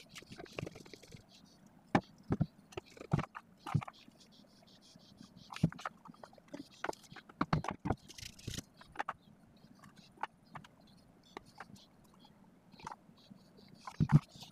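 Plastic parts being handled and fitted together: irregular clicks, taps and knocks of hard plastic, with short stretches of scraping or rustling.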